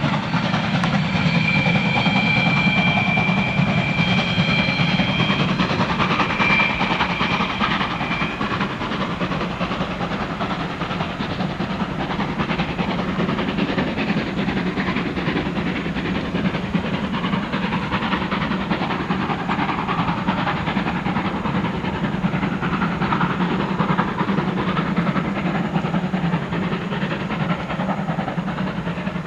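Class 52 two-cylinder 2-10-0 steam locomotive working hard up a grade with a train of coaches. Its exhaust and running gear make a loud, steady noise that eases slightly as it draws away. High steady tones sound over it for the first eight seconds or so.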